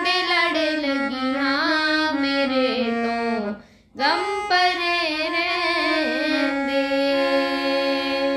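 A woman singing a Punjabi devotional bhajan to Sheranwali Maa. There is a short break for breath about halfway, and near the end she holds one long steady note.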